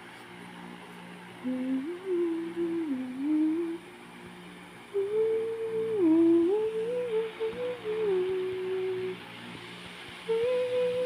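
Wordless hummed melody in short phrases with brief pauses, over a steady low sustained drone, as in soft background music.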